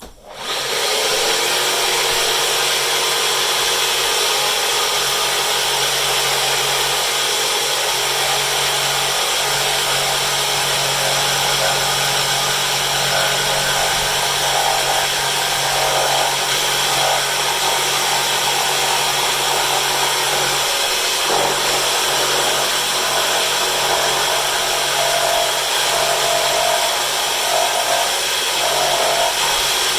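Homemade bandsaw switched on, quickly running up to speed and then running steadily while cutting out the shape of a wooden patch piece.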